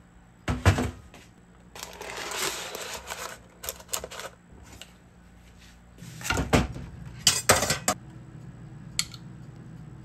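Kitchen handling sounds: a few sharp knocks and clatters as an air fryer basket and a metal pizza pan are moved and set down on a stainless-steel counter, with a stretch of rustling between them.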